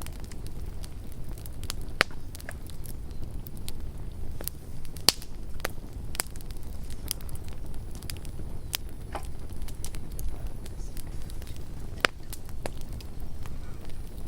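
Campfire burning with a steady low rumble of flames and irregular sharp crackles and pops of burning wood, a few louder pops standing out.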